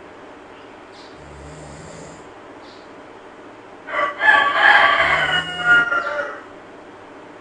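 A monkey snoring softly in breaths about a second long. From about four seconds in, a loud, drawn-out animal call lasting about two and a half seconds rises over it.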